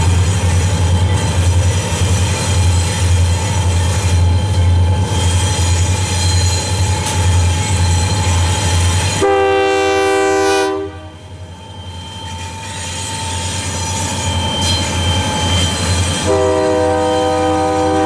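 Two EMD SD40-2 diesel locomotives with 16-cylinder engines rolling past close by, their engines giving a steady low rumble. The lead unit's air horn sounds a chord of about a second and a half about nine seconds in, and sounds again near the end.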